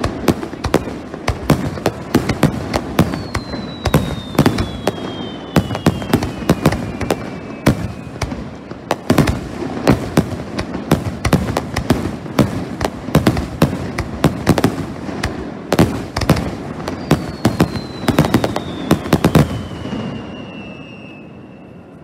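Fireworks display heard at close range: a rapid, unbroken run of bangs from bursting shells, with a falling whistle twice. The bangs stop about twenty seconds in and the sound fades away.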